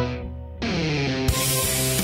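Background music with a band: the sound thins out and dips about half a second in, then comes back with held chords, and a bright cymbal wash enters a little past the first second.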